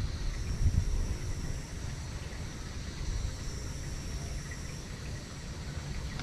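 Open-air pond ambience: wind rumbling on the microphone, gustier in the first second or so, over a steady high-pitched drone of insects such as crickets.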